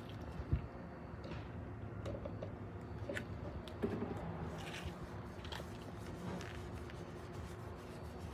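Chip brush scrubbing thin liquid rust converter into rusty diamond-plate steel: a series of short, wet, scratchy brush strokes, with a sharp dull bump about half a second in and a steady low hum underneath.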